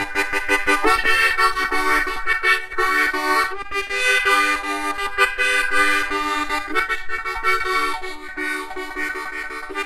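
Harmonica playing chords: quick rhythmic pulses for about a second, then longer held chords that change every second or so.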